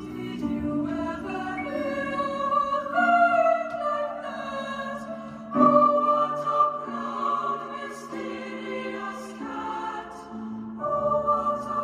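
Choral music: a choir of voices singing slow, held notes that change every second or two.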